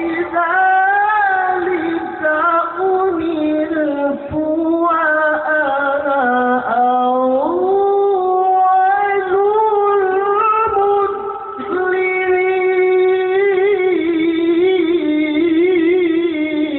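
A male qari's solo melodic Quran recitation (tilawah): one voice drawing out long, ornamented notes with wavering vibrato. There is a short break about twelve seconds in, then a new sustained phrase.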